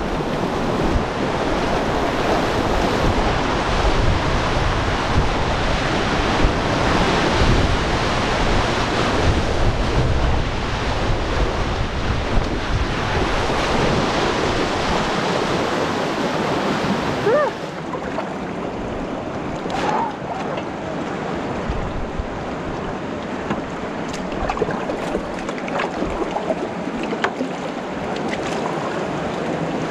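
Rushing whitewater river with wind buffeting the microphone, a steady loud noise. About 17 seconds in it drops abruptly to a quieter rush of water, with a few faint squeaks and ticks.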